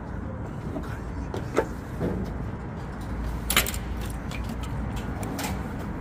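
A small engine running steadily with a low rumble. Three sharp clicks or knocks come over it, the loudest about halfway through.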